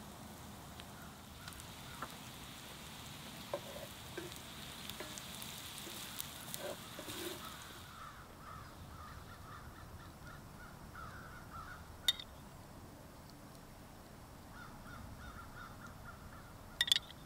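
Onions sizzling and frying in a cast-iron skillet over a fire, stopping about eight seconds in. A bird calls with short repeated notes in the background through most of it, and there are two sharp clicks, one about twelve seconds in and one near the end.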